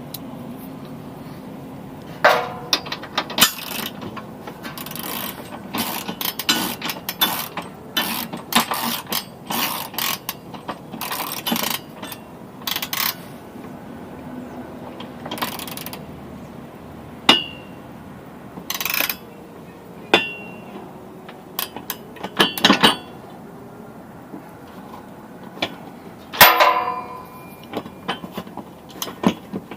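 A socket ratchet wrench clicking in irregular runs, with hand tools clinking and clanking on the steel hitch bolts and frame as the hitch bolts are run in. There are a few sharper ringing clanks, the loudest about three-quarters of the way through.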